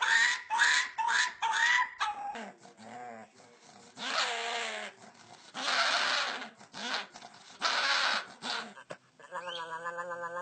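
Dogs vocalising in quick succession: a puppy gives a rapid run of short, pitched howl-like calls, each bending up in pitch, for about two seconds. Then a pug with a stick in its mouth makes three loud, rough, breathy noises a couple of seconds apart. Near the end a small white curly-coated dog starts a long, wavering howl.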